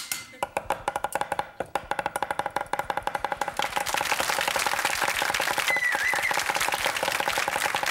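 Two cleavers rapidly chopping raw turkey into mince on a wooden cutting board, in fast even strikes, with music playing along. From about three and a half seconds in, a studio audience claps over it.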